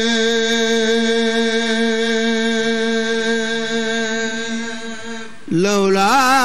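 A man's voice chanting an Arabic devotional poem, unaccompanied: one long held note for about five seconds, a brief break, then a new phrase that rises and wavers with ornaments.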